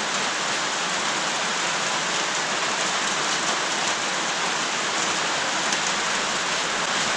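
Steady rain falling, an even hiss of drops that stays at one level throughout.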